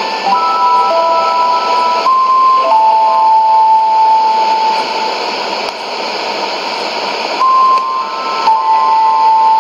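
Shortwave AM broadcast on 6045 kHz from a Sony ICF-2001D receiver: a simple electronic tune of held single tones over steady static hiss. The tune breaks off about halfway through, leaving only hiss for about two seconds, then resumes.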